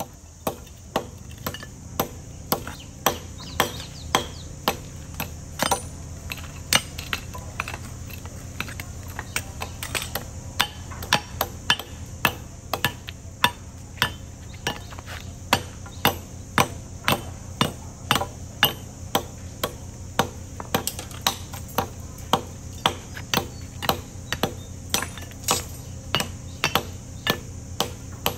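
Hand hammer striking a concrete curbstone again and again, chipping it down: a steady run of sharp blows, about one and a half a second.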